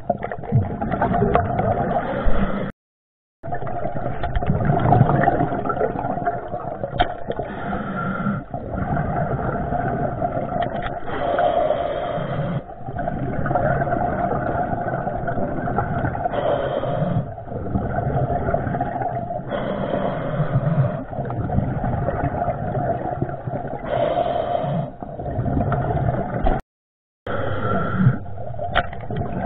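Muffled underwater noise through a waterproof camera housing on a night dive: a steady rushing rumble with scrapes and knocks, cutting out completely twice, about three seconds in and near the end.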